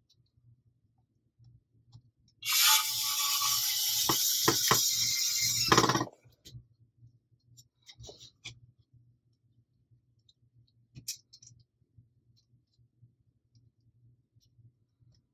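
Power screwdriver whirring for about three and a half seconds, driving a screw into the blaster's printed parts, with a few knocks partway through. Scattered light clicks of small parts being handled follow.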